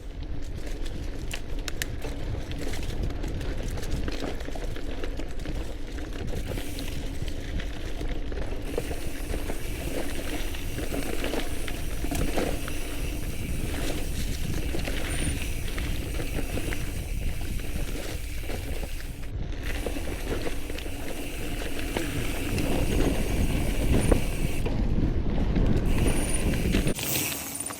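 All-City Gorilla Monsoon gravel bike being ridden: steady tyre rumble over the ground with the rattle and clicking of the bike's chain and parts, getting louder near the end.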